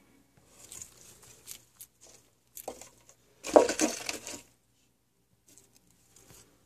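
Frilled dragon crunching a cricket in its jaws: a run of short, crackly crunches, the loudest bout about three and a half seconds in, then a few faint ones near the end.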